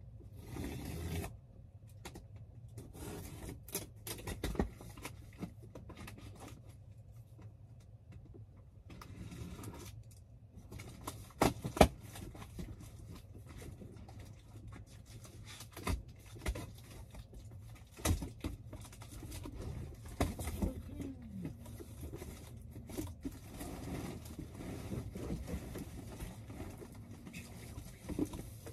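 Handling and rummaging sounds: plastic CD jewel cases being sorted in a box, with scattered clacks and knocks over scraping, the sharpest about 12 seconds in.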